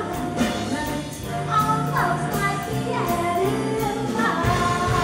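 Live big band jazz with a woman singing the lead over the horns, bass and piano, and a steady swing on the cymbals.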